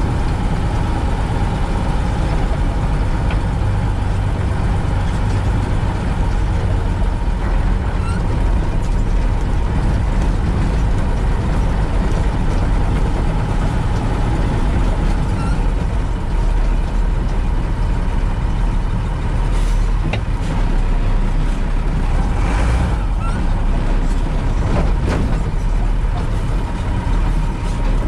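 Unimog U 406's six-cylinder diesel engine running steadily as the truck drives along a gravel forest track, with a few knocks in the second half.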